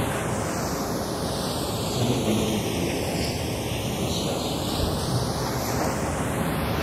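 Steady rushing noise with no distinct event in it, like wind or surf.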